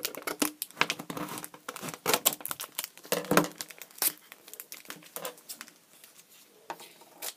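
Plastic wrapping and a trading-card packet crinkling and tearing as the packet is cut and pulled free of a magazine cover: busy crackling for the first four seconds or so, then sparser rustles.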